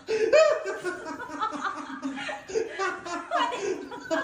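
People laughing and chuckling, with some talk mixed in.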